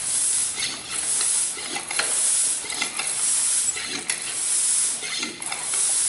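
Hand floor pump inflating a bicycle tyre: a hiss of air with each stroke, about one stroke a second.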